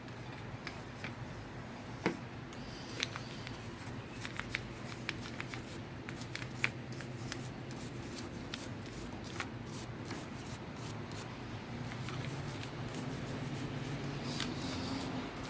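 Hand scrubbing of a cast-aluminium Keihin throttle body: irregular scratchy rubbing with scattered light clicks and taps, over a steady low hum.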